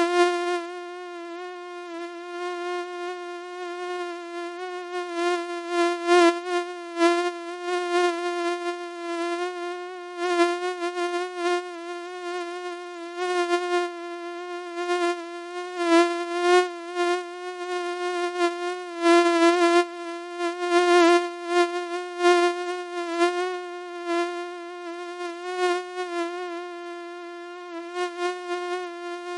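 Mosquito buzzing sound effect: a steady, thin, high whine with many overtones that wavers slightly in pitch and keeps swelling louder and softer.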